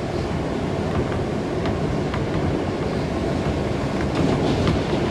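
New York City subway R160A train running, a steady rumble with sharp clicks of the wheels over rail joints, a few of them through the middle and more near the end.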